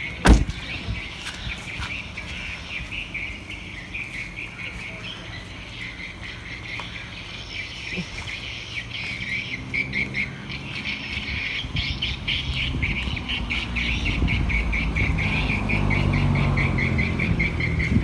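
A car door shuts with a single thud. The Volkswagen Scirocco R's engine then runs at low speed, its rumble growing louder as the car creeps forward, over steady high chirping.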